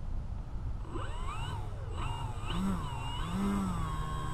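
Electric motor and propeller of an Arrows Husky RC plane spinning up about a second in. Its whine rises and falls with short bursts of throttle, then holds a steady pitch near the end as the plane starts to taxi. A steady low rumble runs underneath.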